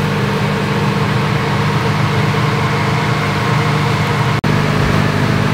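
A steady mechanical hum like a motor running, with a constant low drone and an even hiss over it; the sound cuts out for an instant about four and a half seconds in.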